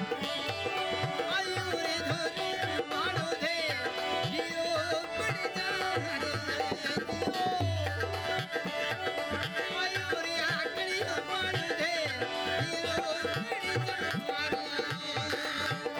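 Live Rajasthani Manganiyar folk music: a hand drum beats a steady rhythm of low strokes under sustained melodic tones and gliding melodic lines.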